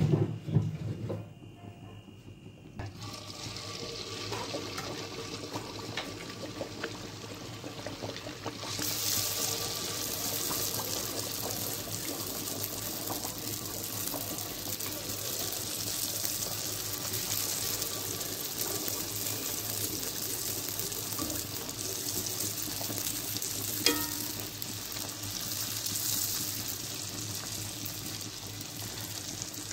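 Dal puris deep-frying in hot oil: a steady sizzle that becomes louder and brighter about nine seconds in and then holds. There is a brief knock at the very start and a single sharp click near the end.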